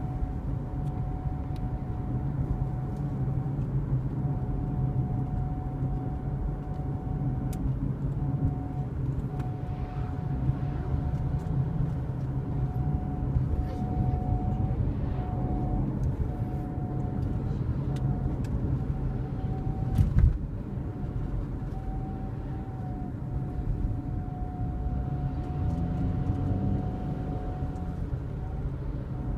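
A steady single-pitched whistle, broken by brief gaps, over the low rumble of a car in motion, with one sharp knock about twenty seconds in.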